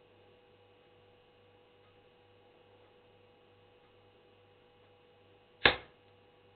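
An egg dropping onto a woven bamboo mat floor: one sharp knock about five and a half seconds in, after which the egg lies unbroken. A faint steady hum runs underneath.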